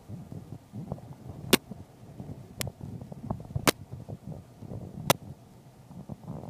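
Inside a slowly rolling car: a low, uneven rumble with small ticks, and four sharp clicks roughly a second apart.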